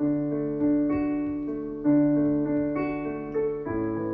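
Instrumental piano-style keyboard music of a children's worship song: sustained chords over a bass line, changing about every two seconds.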